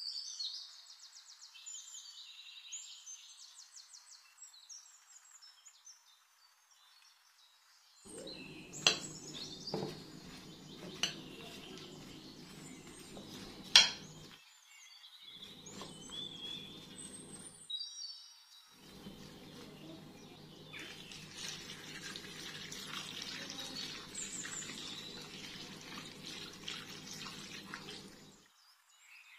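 Faint bird chirps, then a metal spoon tossing cubed potatoes and vegetables in a glass baking dish, with a few sharp clinks of the spoon against the glass. Near the end liquid is poured into the dish.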